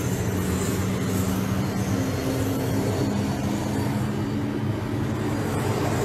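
Helicopter engine and rotor running steadily, heard from inside the cabin as a continuous low drone with a steady hum.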